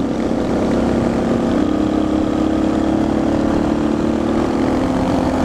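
Suzuki DR650's single-cylinder engine running steadily at cruising speed in top gear, its pitch rising slightly about a second and a half in, with wind rushing over the helmet camera.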